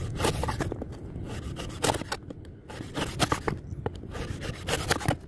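Scraping and rubbing with irregular sharp clicks and knocks, like something being handled or worked by hand.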